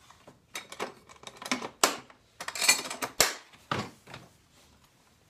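Hard plastic clicks, knocks and rattles of a Husky Connect toolbox organizer being closed and handled, with its contents shifting: a string of short sharp knocks, one sharp snap about three seconds in.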